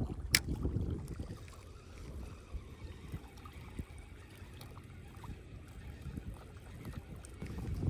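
Wind rumbling on the microphone with faint trickling water, and one sharp click shortly after the start.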